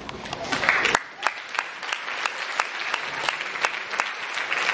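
Audience applauding, many hands clapping with a few sharper single claps standing out.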